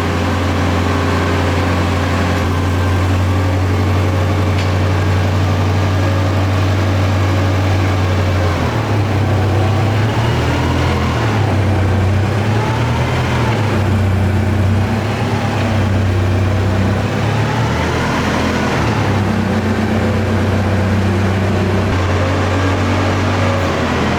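A forklift engine running steadily. For about ten seconds in the middle its pitch rises and falls, with a whine rising and falling above it, then it settles back to a steady idle.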